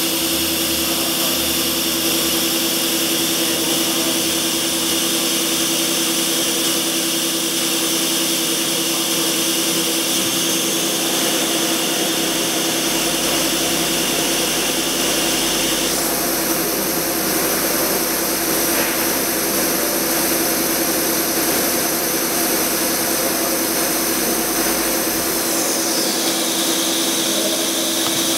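Friction riveting machine's spindle running at high speed, spinning a metal rivet pressed into a polymer plate: a steady mechanical whine over a hum. The high whine jumps in pitch about halfway through and slides down in pitch near the end as the process finishes.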